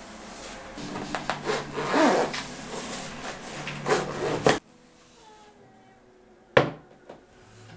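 Hands handling a fabric paint pouch, rustling, with a zipper being pulled. After a sudden drop to quiet about four and a half seconds in, one sharp wooden clack, then a smaller click, as a small wooden paintbox is shut.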